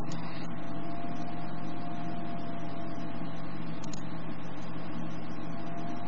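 Steady background hum and hiss with a faint constant high whine, unchanging throughout.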